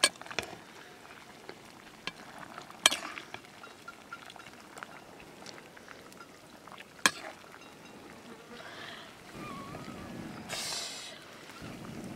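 Potato curry frying in a metal pan over a wood fire with a low sizzle, while a metal ladle stirs it and knocks sharply against the pan three times, at the start, about three seconds in and about seven seconds in.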